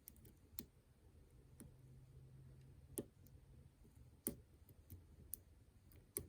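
Faint, sharp metallic clicks of a Peterson hook pick working the top pin tumblers of an ASSA Twin Combi lock cylinder: about a dozen scattered ticks, the loudest about three and four seconds in. The clicks are the feedback of pins being nudged and setting.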